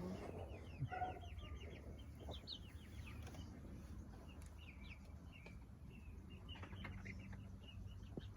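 Young chickens peeping and chirping: quick runs of short, high chirps, thinning to scattered calls.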